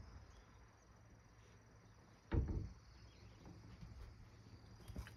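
Faint, steady chirring of insects, with a short low thump about two seconds in.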